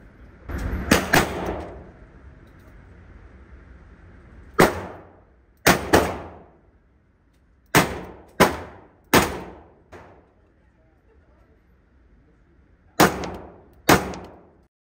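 Handgun shots fired in an indoor shooting range, about ten in uneven groups of one to three, each cracking sharply and ringing off briefly in the range's echo.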